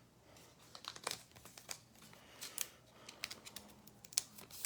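Foil wrapper of a Donruss trading card pack being crinkled and torn open: irregular soft crackles and small clicks.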